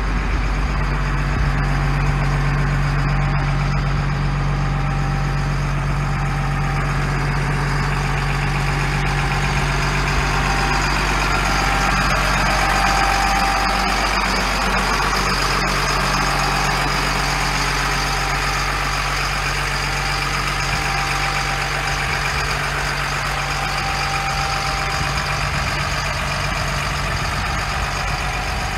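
The Cat 3116 diesel engine of a 1998 Stewart & Stevenson M1083 MTV 6x6 cargo truck idling steadily, a constant low hum.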